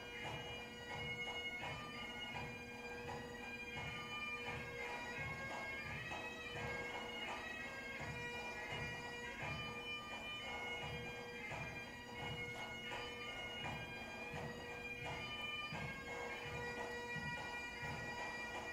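Bagpipe music: a steady drone under a shifting melody, with a regular drum beat about twice a second.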